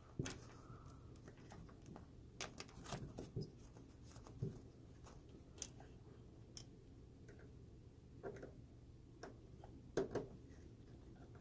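Faint, scattered clicks and taps of a small flathead screwdriver and fingers working plastic wire connectors on a beer dispenser's circuit board, a dozen or so spread out, some in quick pairs.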